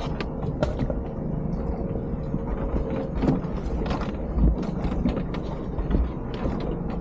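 Shrimp pot gear being hauled aboard a boat: irregular mechanical clicks and rattles, with a steady whine that stops about three seconds in, over a low rumble.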